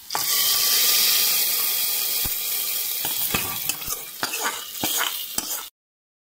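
Hot oil tempering with curry leaves poured into dal, a loud sizzle that starts suddenly and eases slightly, with metal clinks and scrapes as the small pan is emptied over the pot rim. It cuts off abruptly shortly before the end.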